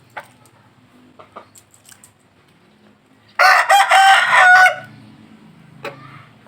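A rooster crows once, loudly, for about a second and a half, midway through. Short faint clucks and ticks come and go around it.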